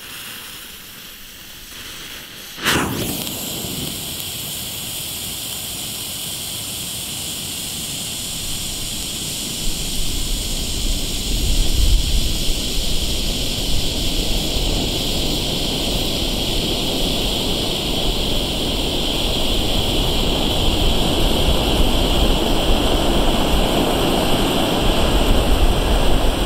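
Violet Bengal fire (a ground flare) catches with a sudden burst about three seconds in, then burns with a steady rushing hiss that grows louder.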